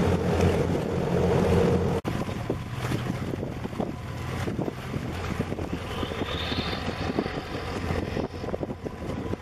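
A tugboat's diesel engine drones steadily as it passes close by, with wind buffeting the microphone. About two seconds in, the sound cuts to gusty wind and water splashing against the breakwater blocks over a fainter engine hum.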